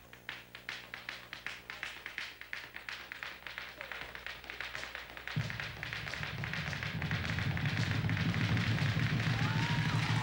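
Boleadeiras whirled and struck on the stage floor in a fast, even rhythm of taps, about five a second. About five seconds in, a low drum rumble from the accompanying percussion joins, and the whole grows louder.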